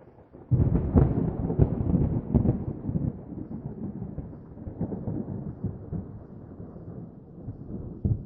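A thunderclap: it breaks suddenly about half a second in with sharp cracks over the first couple of seconds, then rolls on as a long rumble that slowly fades, with one more crack near the end.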